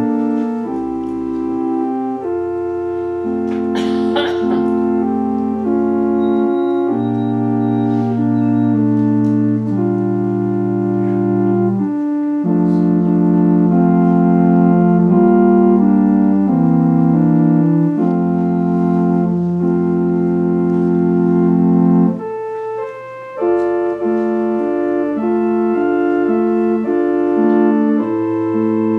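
Organ playing a slow prelude of held chords over sustained low bass notes. The notes hold steady without fading, and there is a short break about three-quarters of the way through.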